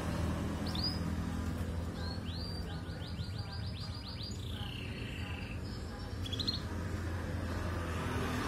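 Canary chirping: a single chirp about a second in, then a quick trill of about ten rising notes, a falling slurred note, and a short trill later on, over a steady low hum.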